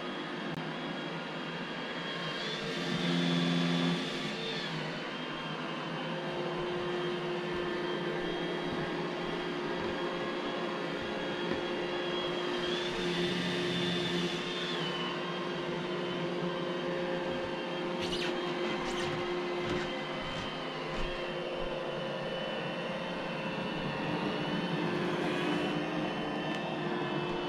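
iRobot Roomba j7 robot vacuum running: a steady motor hum and whine that swells briefly three times, with a few light clicks about two-thirds of the way through.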